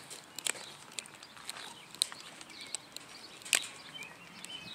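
Slow footsteps, a sharp step or click about every second and a half, with small birds chirping faintly in the background.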